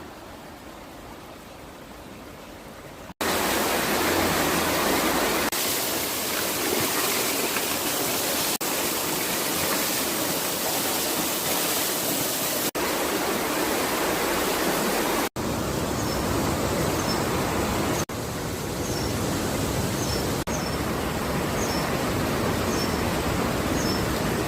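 Mountain valley stream flowing steadily, an even rush of water, quieter for the first few seconds and then louder, with several abrupt cuts between clips. Short high chirps repeat near the end.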